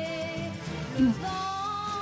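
Background pop music with held vocal notes, the chord changing about a second in.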